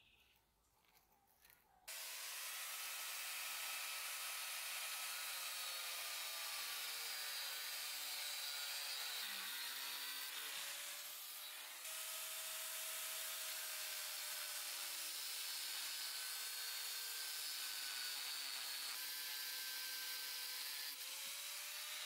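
Angle grinder with a cut-off disc cutting through steel rebar held in a vise. The steady grinding starts abruptly about two seconds in, and the motor's whine sags and recovers as the disc bites into the bar.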